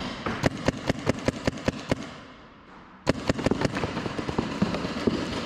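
Paintball markers firing rapid strings of sharp pops, about five a second, breaking off for about a second midway and then starting again more densely.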